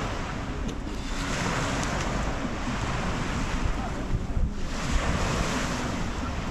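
Wind rushing over the microphone with a low rumble, over small waves washing onto a sandy beach; the rush eases briefly about four seconds in.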